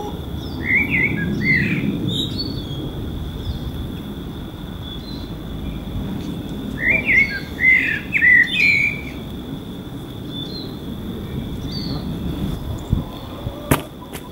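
Small songbird chirping in two quick runs of short chirps, about a second in and again about seven seconds in, over a low steady outdoor background. A single sharp knock near the end.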